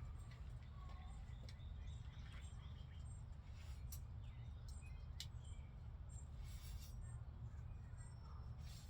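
Faint bird chirps over a steady low rumble, with a few scattered clicks.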